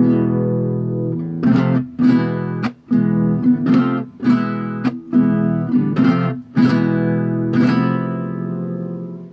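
Acoustic guitar being strummed, a run of chords at an uneven rhythm. The last chord rings out and is cut off abruptly near the end.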